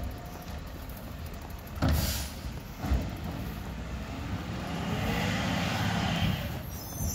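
Automated side-loader recycling truck emptying a curbside cart: a bang about two seconds in and another about a second later as the cart is tipped into the hopper, then the engine swells with a rising whine. A high squeal starts right at the end.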